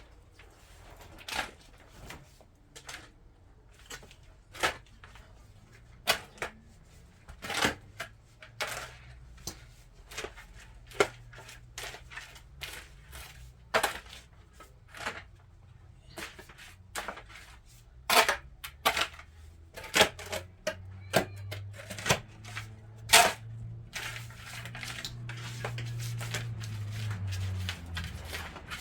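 Irregular sharp taps and knocks of hand tools on tile and masonry, roughly one every second or two. A low hum comes in about two-thirds of the way through.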